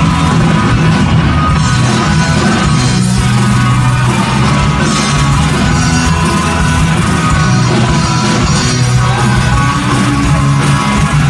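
Britpop band playing live on electric guitars, a loud, steady rock song heard from the audience.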